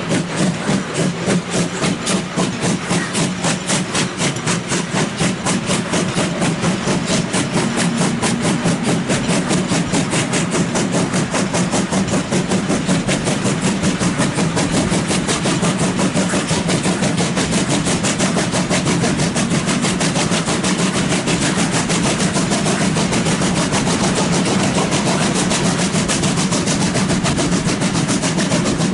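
Steam locomotive 41 1144, a two-cylinder DR class 41, chuffing as it pulls away and gathers speed, heard from close behind its tender. The exhaust beats come at about two a second and steadily quicken to several a second, over the steady rumble of the train.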